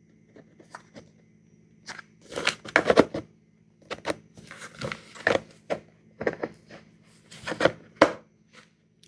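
Small stackable hard-plastic bit cases being handled and pushed against each other: irregular clicks, knocks and scrapes, with louder clusters of knocks about a third of the way in and near the end.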